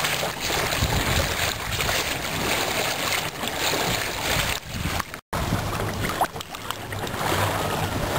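Water rushing and splashing along the hull of a Bolger Oldshoe sailboat moving fast under sail, with a low rumble of wind. The sound cuts out for a moment about five seconds in.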